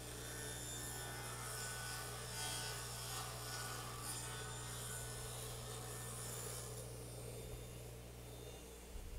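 Table saw cutting a groove along a wood strip pushed against the fence, a rough hiss over a steady low hum. The cutting noise fades out at about 7 s, and the hum cuts off shortly before the end.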